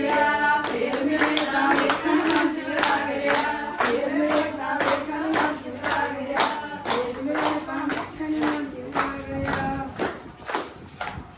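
Group of voices singing to steady rhythmic hand claps, about two to three claps a second. The singing stops about nine seconds in, and a few claps carry on after it.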